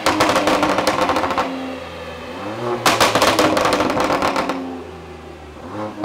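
BMW M3 G80's twin-turbo straight-six blipped through a Milltek Sport exhaust: two sharp revs with a crackling rasp, each falling back to a steady idle, and a third rev rising near the end.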